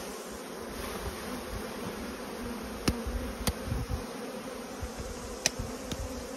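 Honeybees buzzing around an open hive, a steady hum from many bees. A few sharp clicks are heard partway through.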